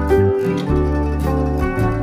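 Background music: a plucked-string jingle with a steady bass line.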